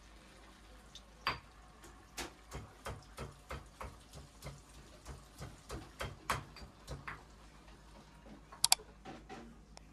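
Pestle pounding in a mortar, a steady run of light knocks about two to three a second that thins out near the end. Garlic, shallots, lemongrass and chilli are being crushed only coarsely for a spice paste.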